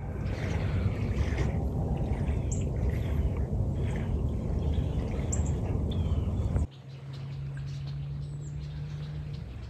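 Outdoor ambience with a few short, high bird chirps over a steady low rumble. About two-thirds of the way through, the rumble cuts off abruptly, leaving a quieter background with a faint low hum.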